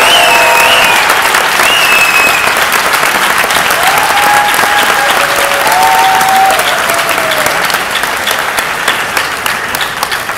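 Audience applauding, with a few voices calling out in the first half; the clapping fades and thins to scattered claps near the end.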